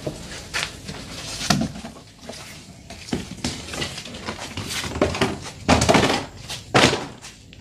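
Irregular knocks, bumps and scrapes against wooden cage boards as a large reticulated python is handled and moved between wooden cages; the loudest knocks come in a cluster towards the end.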